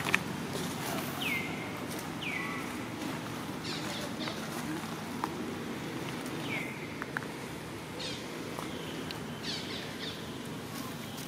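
Short high animal calls, several times, each sliding down in pitch and then levelling off, over a steady low background rumble.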